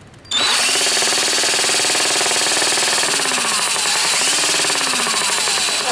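Cordless drill running at speed, spinning a homemade alternator built from a Honda TRX300EX flywheel and stator. The off-balance chuck piece makes the spinning assembly wobble, giving a loud, steady rattle. It starts abruptly a moment in.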